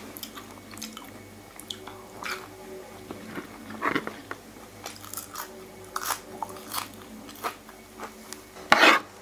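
A person chewing and crunching a mouthful of stir-fried small freshwater shrimp with fresh vegetables, in short crisp crunches every second or so, with one louder burst near the end.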